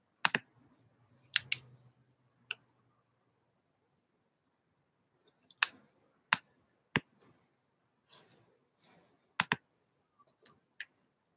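About a dozen sharp clicks and taps at irregular intervals, some in quick pairs, with a soft rustle or two in between: fingers tapping and clicking on the recording device.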